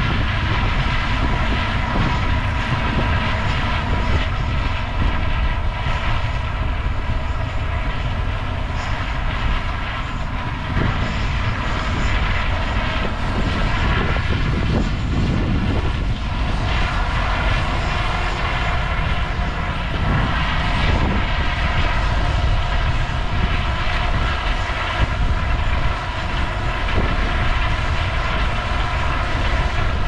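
Steady engine drone with several held tones, over a heavy low rumble.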